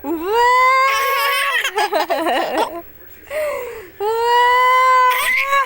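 Infant crying: a long, steady wail at the start and another about four seconds in, with shorter broken cries between them.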